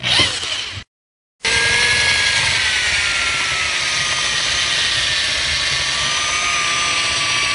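Power drill with a twist bit boring through a plastic barrel bung. A brief burst of drilling is cut off by a half-second gap about a second in, then a long, steady drill whine follows as the hole is enlarged, its pitch drifting slightly lower.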